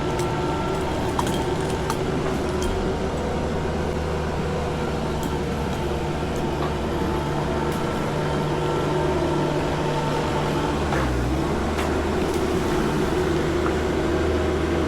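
An engine running at a steady speed, its pitch dipping and coming back up briefly about eleven seconds in.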